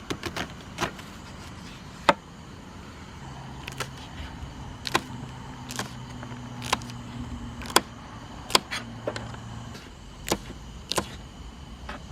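A series of about fifteen sharp, irregularly spaced clicks and knocks, the loudest about two seconds in. A low steady hum sets in about three seconds in and stops near ten seconds.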